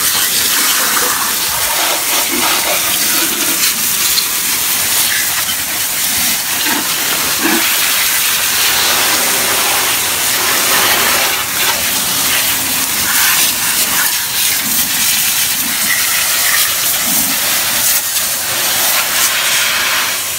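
Garden hose pistol-grip spray nozzle spraying water onto an engine bay: a steady hiss of spray splashing on the engine parts.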